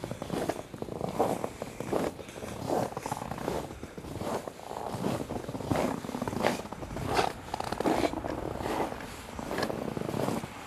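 Footsteps walking at a steady pace, about one step every three-quarters of a second.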